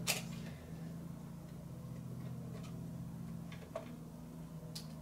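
A few faint clicks and taps as the graphics-card power cable is handled and plugged into the power supply, over a steady low hum.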